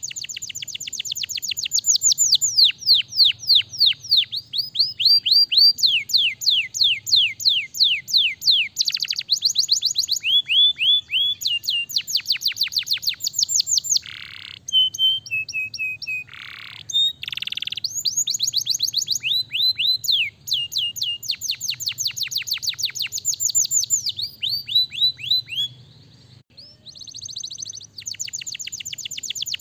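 Domestic canary singing: long, rapid trills of repeated downward-sweeping notes, the trill speed changing from phrase to phrase, with a few short held notes near the middle and a brief break a few seconds before the end.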